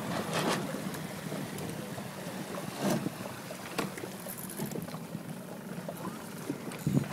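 Inflatable coach boat moving slowly on open water: water sloshing and slapping against the hull under a faint low engine hum, with wind on the microphone. A few sharp slaps stand out, the loudest about three seconds in and near the end.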